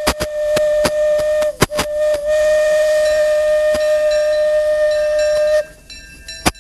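Disneyland Railroad steam locomotive whistle blowing one long, steady blast. It breaks off briefly about a second and a half in, then sounds again and cuts off near the end. Scattered sharp clicks run beneath it.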